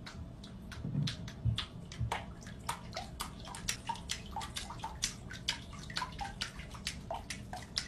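A cat pawing at the water in a filled bathtub: a quick, uneven run of small splashes and plops, about four or five a second.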